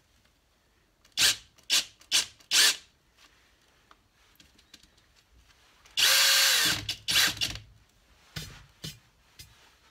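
Cordless drill clamped in a vise, spinning a coarse buffing mop on its spindle in short trigger blips. There are four quick spins, then a longer run of almost a second that winds down in pitch, then two more short spins and a few light clicks near the end.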